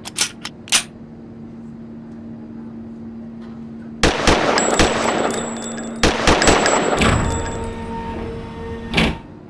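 A run of sharp bangs and loud crashing bursts over a steady hum: a few isolated cracks at first, then a dense clattering volley from about four seconds in, ending with a single hard bang.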